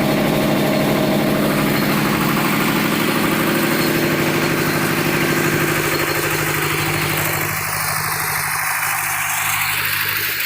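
Plastic scrap washing machine running with a steady, pulsing mechanical drone. The low part of the hum drops away after about six seconds.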